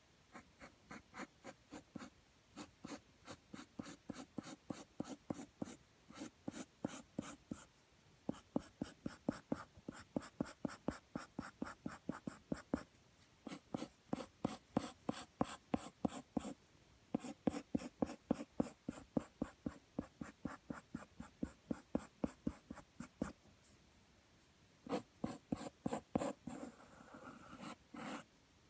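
Graphite pencil sketching on paper: quick scratching strokes, about three a second, in runs with short pauses between them.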